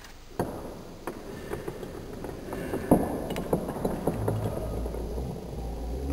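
Plastic pieces of a broken-apart V-Cube 6 puzzle clicking and clattering as they are handled on a wooden table, in many scattered sharp clicks. A low hum comes in about four seconds in.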